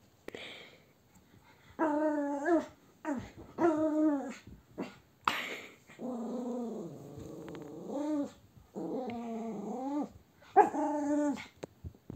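Small griffon dog growling in play, a series of drawn-out, pitched, wavering growls with a few short snorting puffs between them, the longest growl held for about two seconds in the middle.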